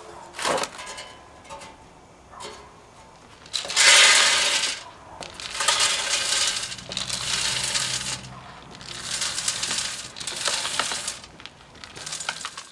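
Wood pellets poured from a scoop into a perforated sheet-steel pellet burner, rattling and pattering against the metal in several pours, the loudest about four seconds in.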